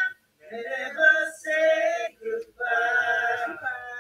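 Young men singing together mid-conversation, an impromptu burst of song in held notes, broken by a short pause about halfway through.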